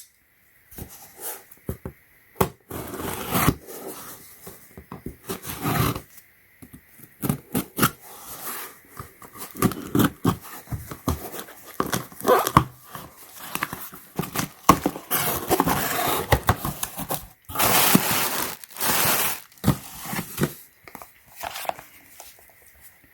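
Unboxing noises: packaging being opened and handled, with rustling, crinkling and tearing of plastic and cardboard and scattered clicks and scrapes. Two longer tearing or rustling passages come near the end.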